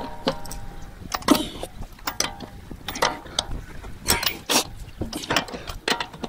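Lug nuts being loosened with a 19 mm socket on a ratchet: irregular metallic clicking of the ratchet and clinks of the steel socket as it is fitted onto one nut after another.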